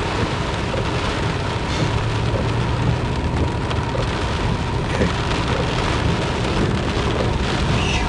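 Rain hitting a car's windshield and roof, heard from inside the moving car as a steady hiss over low road and engine rumble.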